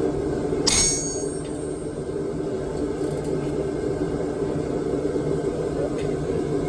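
A single hammer blow on steel about a second in, ringing briefly, over a steady low hum.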